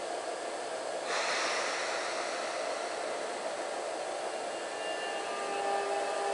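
Sotetsu electric train pulling away from the platform: a sudden hiss of compressed air about a second in as the brakes release, then the whine of its traction motors starting up near the end, several steady tones over the hiss.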